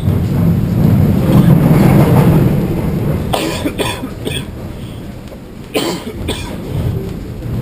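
Inverted roller coaster train rumbling as it slows in the station, fading after about three seconds. Then a man coughs several times into his fist.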